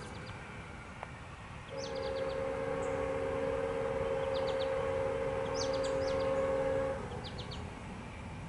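Norfolk Southern locomotive's air horn, a chord of several notes, sounds one long blast of about five seconds beginning a little under two seconds in. This is the warning for the grade crossing. Birds chirp in short bursts several times.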